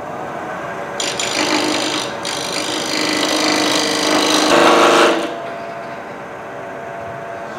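Wood lathe running while a turning tool cuts into the spinning wood. The cut starts about a second in, grows loudest near five seconds and stops sharply, leaving the lathe running on its own.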